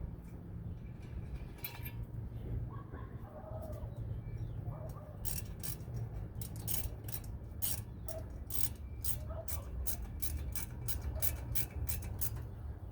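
A run of sharp metallic clicks, about two or three a second, from about five seconds in until near the end, as a hand tool drives the small rotor retaining screw into the wheel hub.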